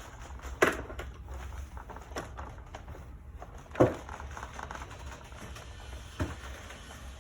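Three separate sharp knocks or clanks, a few seconds apart, the middle one loudest with a dull thud, over a steady low hum: hardware being handled at a garage door.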